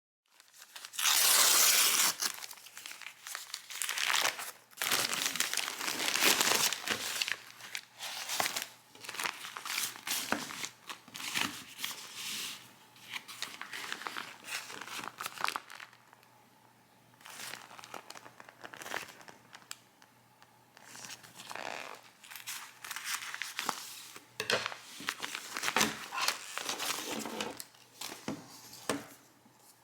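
Packaging being handled and opened: irregular crinkling and tearing rustles, loudest about a second in and again several seconds later, with quieter stretches in between.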